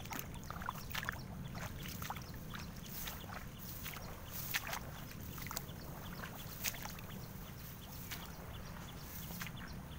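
Footsteps wading through wet swamp grass and shallow water: irregular swishes and small splashes, the loudest about halfway through, over a low steady rumble.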